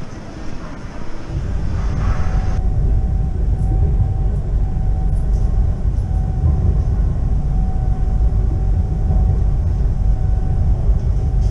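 Train running at speed, heard from inside the carriage: a steady low rumble with a faint, even whine on top, starting about a second in after a quieter moment.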